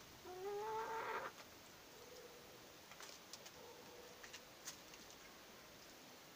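A chicken gives a single call of about a second near the start, a little rising in pitch, followed by a few faint clicks.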